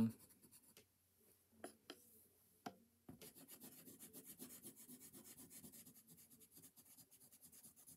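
Graphite pencil shading on paper: soft, rapid back-and-forth scratching strokes that start about three seconds in, after a near-silent stretch with a couple of faint ticks.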